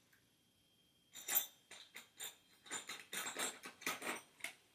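Handling noise: a quick, irregular run of clicks and rustles starting about a second in, as small firearm parts are picked up and moved about.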